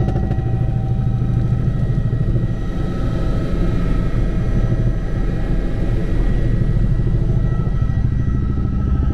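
Helicopter in flight heard from inside the cabin: a steady, rapid rotor beat in the low end with a steady turbine whine above it.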